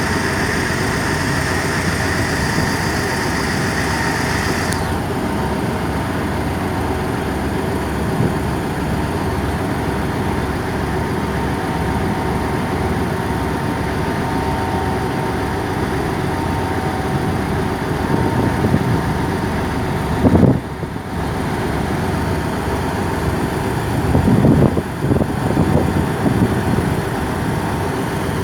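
Tugboat's diesel engine running steadily with an even low throb. A high whine stops about five seconds in, and a few louder knocks come in the second half.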